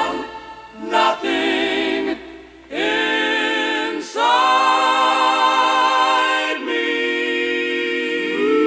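Wordless vocal harmony: several voices holding sustained chords, like a choir, one chord after another with brief breaks between.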